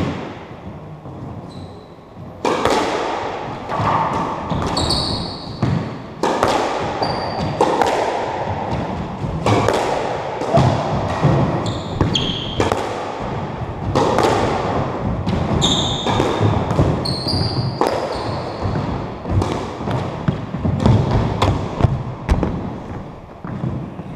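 A squash rally in an echoing court: the ball cracks off rackets and walls about every half second to a second, with short high squeaks of shoes on the wooden floor. The hitting starts about two seconds in and stops a couple of seconds before the end.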